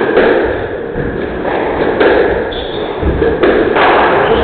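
Squash rally: the ball is struck by rackets and hits the court walls, a series of sharp knocks over a steady hall background.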